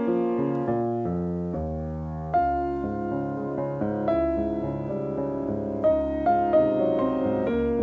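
Background music played on a piano or electric piano: a calm melody of held notes and chords, with fresh chords struck more firmly a little after two seconds in and twice near the end.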